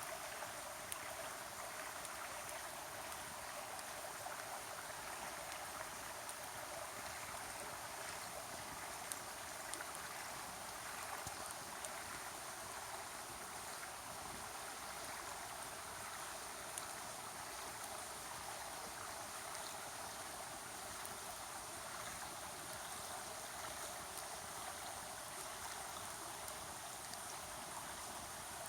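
River water gurgling and rushing steadily, with a few faint sharp ticks scattered through it.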